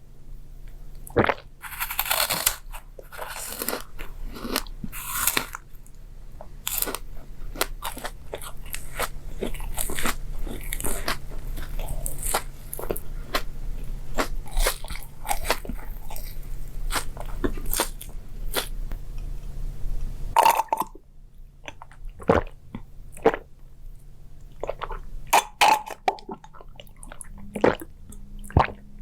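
Close-miked crunchy chewing and biting of food, ASMR mukbang style: dense crackling bites and chews, thinning to sparser crunches about twenty seconds in.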